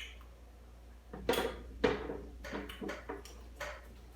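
Light clatter of dishes and cutlery: a handful of short clicks and knocks, several of them between about a second and four seconds in.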